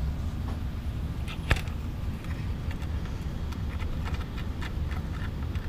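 Light clicks and taps of small metal hardware (lock nut, washer and spring) being picked up and threaded by hand onto a bed plate screw, with one sharper click about a second and a half in. A steady low hum runs underneath.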